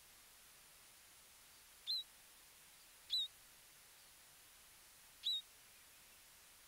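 A small bird chirping three times, each chirp short and high, the third after a longer gap.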